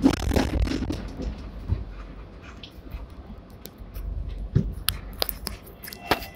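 Hong Kong seventh-generation air-conditioned tram running along its rails, heard from inside the lower deck. A low rumble with quick pulsing in the first second settles to a steadier, quieter running noise, with a few sharp clicks and knocks from the wheels and car body in the second half.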